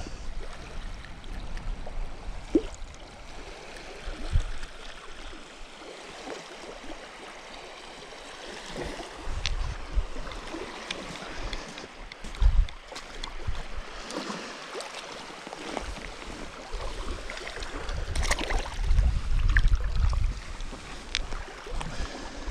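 Wind buffeting the microphone in gusts over a steady wash of water at the shoreline, with a few sharp clicks. The strongest gusts come about halfway through and again near the end.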